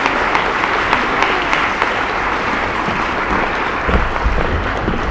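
Audience applauding steadily, a dense patter of many hands clapping. A low rumble comes in near the end.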